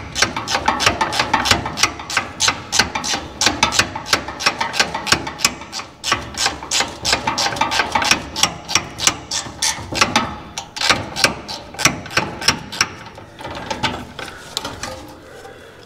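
Hand ratchet clicking in quick, uneven strokes as a bolt is worked loose, the clicks thinning out and growing fainter near the end.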